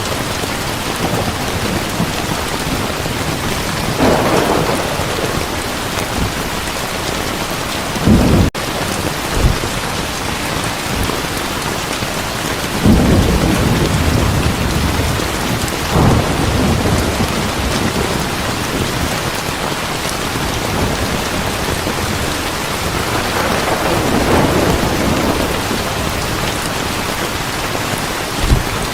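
Heavy rain falling steadily, with thunder rolling in several times. There is a sharp, loud clap about eight seconds in and another near the end.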